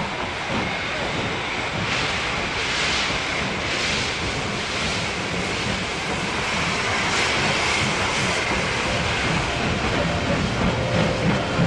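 Steam locomotive running along the track: a steady rush of rail and running noise with hissing chuffs swelling about once a second.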